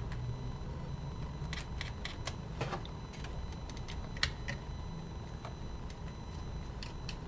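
Scattered small clicks and taps of a hand tool handling the plastic gear wheels and metal chassis of a cassette Walkman's tape mechanism, a cluster about two seconds in and one sharper tick about four seconds in, over a steady low hum.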